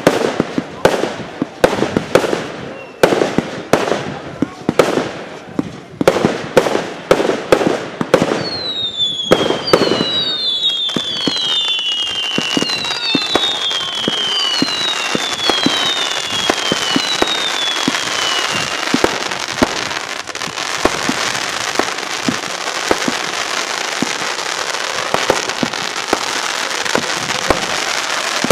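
Fireworks going off: a rapid run of sharp bangs, several a second, for the first eight or nine seconds. Then about seven whistles, each falling in pitch, follow one another over the next ten seconds above a dense, continuous crackling that carries on to the end.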